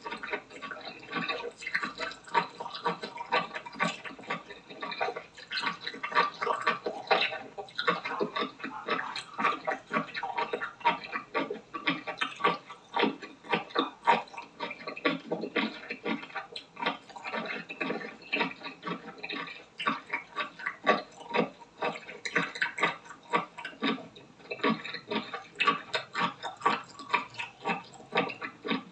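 Close-miked wet chewing and slurping of raw octopus, a dense run of short sticky mouth clicks, several a second.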